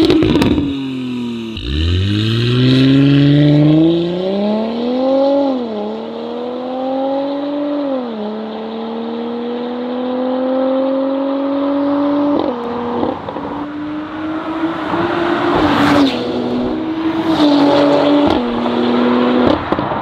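Porsche Cayenne 3.0T's turbocharged V6 through an Armytrix valvetronic exhaust with decatted downpipe. It blips once, then accelerates away hard, the note climbing and dropping at each of several upshifts before settling to a steadier, lower drone as the car recedes.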